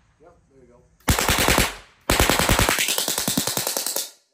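Oxygen-propane simfire prop machine gun firing: a short burst of rapid bangs about a second in, then a longer burst of about two seconds that cuts off sharply. The gun runs on ignited propane and oxygen, not blanks.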